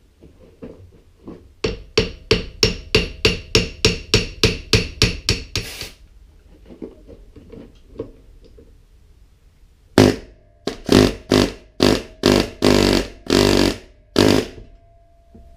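Hammer blows on an old John Deere hydraulic pump clamped in a vise, as it is knocked apart to get at its seals. A quick run of sharp strikes comes about three or four a second for about four seconds. After a pause comes a second run of heavier, slower blows with a faint metallic ring.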